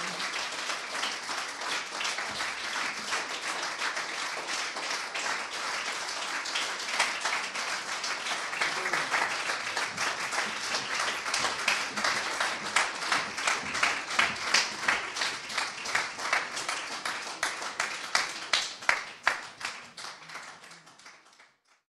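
Audience applauding a stage performance, the clapping growing into louder, evenly spaced rhythmic claps in the second half, then fading out near the end.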